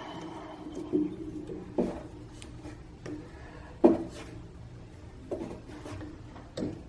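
Metal knocks and scrapes of a 15 mm wrench working on an air bike's pedals: about five sharp knocks, the loudest about four seconds in.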